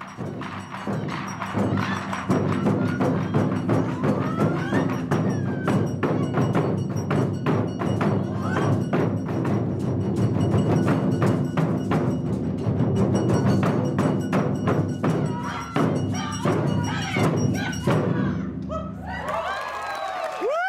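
Taiko ensemble drumming: several large wooden barrel drums (chu-daiko) with tacked hide heads struck with wooden bachi in a fast, driving rhythm of dense, heavy strokes. The drumming stops near the end.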